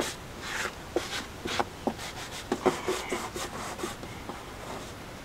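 Vinyl decal being handled and rubbed down onto the boat's hull: irregular scratchy rubbing with a sharp click at the start and small clicks and taps over the next few seconds, thinning out near the end.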